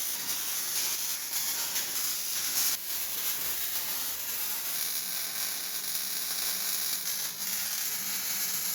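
MIG welding arc on steel, sizzling and crackling steadily.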